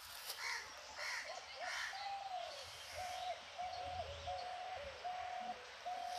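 Birds calling: three harsh caw-like calls in the first two seconds, then a run of five even, level-pitched notes about three-quarters of a second apart.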